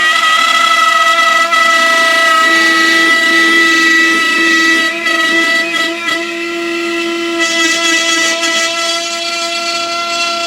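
A small power tool cutting a square opening in a plastic box, its motor giving a loud, steady whine of several held tones.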